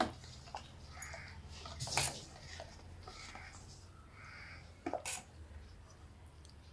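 Steel spoon stirring thick payasam in a stainless steel pot, knocking and scraping against the metal a few times, loudest at the start and about two and five seconds in. A crow caws faintly now and then in the background.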